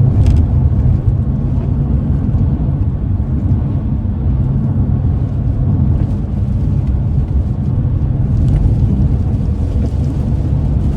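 Loud tyre and road noise inside a car's cabin on a rough, broken road surface, with a steady low hum beneath it. It comes from hard Michelin Pilot Super Sport tyres, which make the road noise loud.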